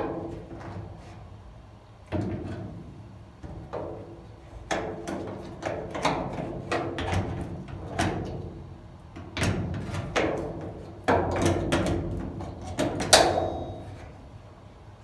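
Repeated clanks, clicks and rattles of a steel repair panel and locking pliers (mole grips) being handled and clamped on. About thirteen seconds in there is a louder hit that rings briefly.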